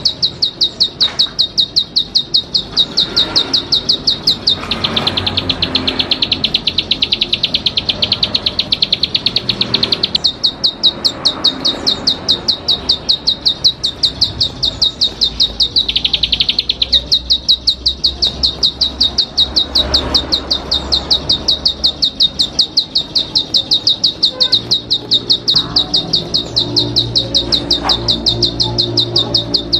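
Ciblek padi (a prinia) calling in a fast, unbroken series of short high chips, several a second, that goes on without pause; for a few seconds near the start and again briefly around the middle the notes turn fuller and reach lower.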